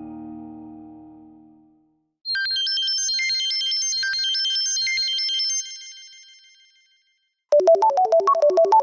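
Samsung Galaxy S4 stock phone tones played one after another: a lower tone dies away in the first couple of seconds, then a high, quick twinkling chime melody plays for about three and a half seconds and rings off, and near the end a new quick melody of short notes starts in a lower register.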